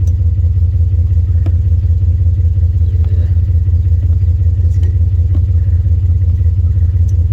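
A steady low mechanical hum with a fast even pulse, like a motor running at a constant speed, with a few faint clicks on top.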